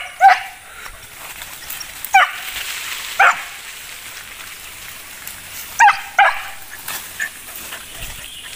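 Hunting dog barking in short, single sharp barks: about five loud ones spaced a second or more apart, then a couple of fainter ones near the end.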